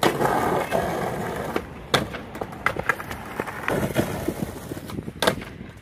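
Skateboard wheels rolling over rough, cracked asphalt, then the board clacking sharply against the pavement several times, loudest about two seconds in and again just after five seconds.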